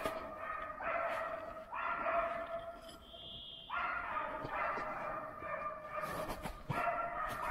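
West Siberian laikas barking at bay on a moose, a continuous series of barks in runs of about a second each. This is the sign that the dogs have found the moose and are holding it. A couple of sharp snaps near the end.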